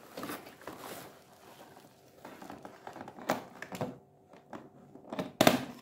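Cardboard packaging and plastic crinkling and scraping as a large hollow plastic Hulkbuster action figure is worked out of its box, with scattered knocks and clicks; the loudest knock comes near the end.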